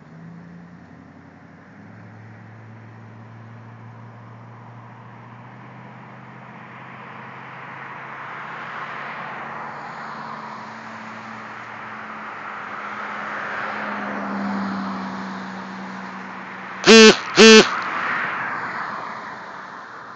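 Vehicle noise swelling and easing off, then two short, loud car-horn beeps half a second apart near the end.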